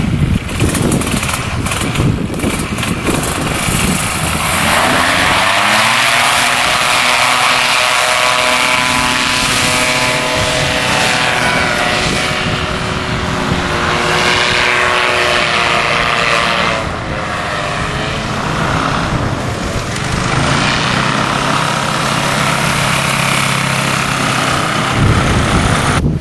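Paramotor engine and propeller running at high power through a take-off and climb-out, louder from about four seconds in. The engine note wavers in pitch along the way.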